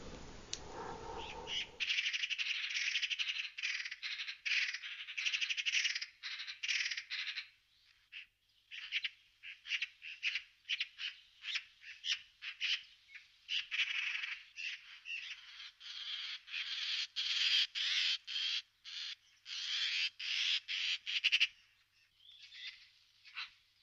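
Eurasian magpie chattering: long series of harsh, rattling calls in quick pulses, starting about two seconds in and broken by short pauses. This is the chatter magpies give when alarmed at a predator such as a harrier.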